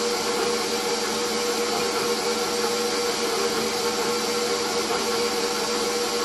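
Electric stand mixer running steadily with a constant motor hum, blending dry bath bomb powders (baking soda, cream of tartar, SLSA and kaolin clay) in its stainless steel bowl.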